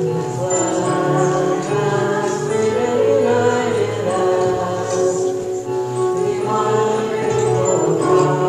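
Worship hymn sung by voices over a small acoustic stringed instrument played by hand, running steadily without a break.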